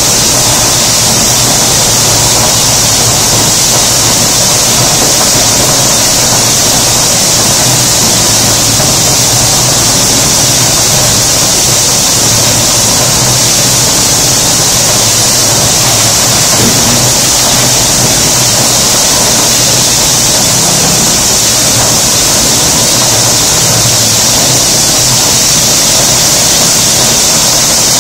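Turbosol TM250E screed pump discharging: a loud, steady rush of air and screed mix blowing out of the delivery hose into the discharge hood, with a high hiss and a low hum beneath.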